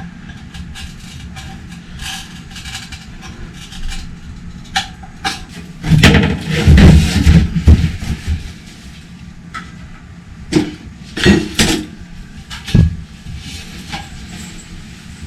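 Metal clanking and knocking as tools and motorcycle wheel parts are worked and handled, with a stretch of heavy rumbling clatter about six seconds in and several sharp knocks a few seconds later.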